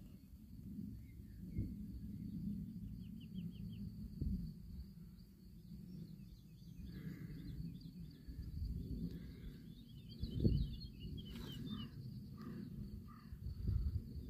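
Small birds chirping and twittering over a low outdoor rumble of wind on the microphone, with a quick run of chirps a few seconds in and a longer twittering series near the end. A few soft thumps, like handling of the phone, stand out from the rumble.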